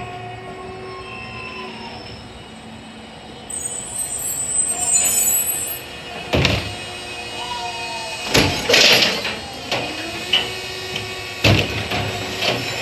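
Electric side-loading garbage truck pulling up beside the bins and working its lifting arm: a thin electric whine that rises in pitch twice, a hiss, and three loud clunks.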